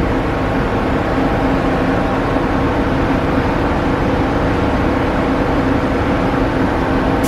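R62A subway train standing at the platform with its doors open, its onboard equipment giving a steady hum and hiss with no change.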